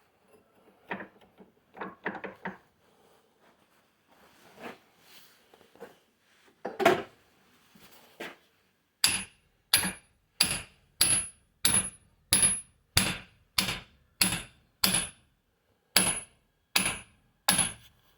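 Metal hand tool at work: a few irregular knocks and one louder knock, then a steady series of about thirteen sharp metallic clicks, roughly one and a half a second, each with a brief high ring.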